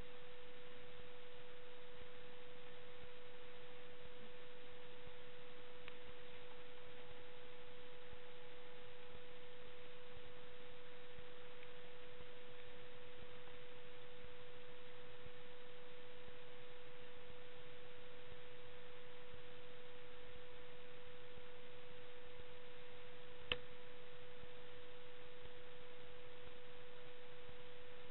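A steady single-pitched hum over a faint hiss, unbroken throughout, with one sharp click about 23 seconds in.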